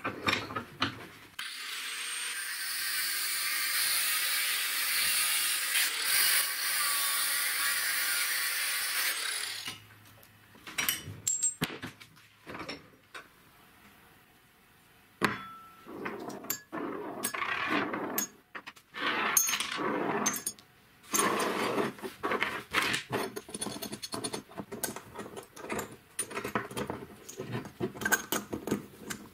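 Angle grinder cutting a square steel profile tube clamped in a vise: about eight seconds of steady, hissing grinding noise, then it stops. After that come intermittent clinks, taps and scrapes of small steel parts being handled, with bearings and washers being fitted onto a bolt.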